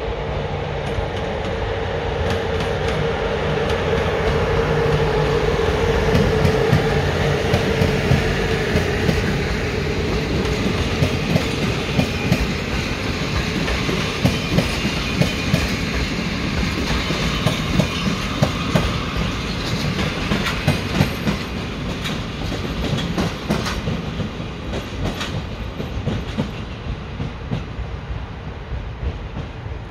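A train passing by. A steady tone over a rumble for the first several seconds, then wheels clicking over rail joints, with the sound fading toward the end.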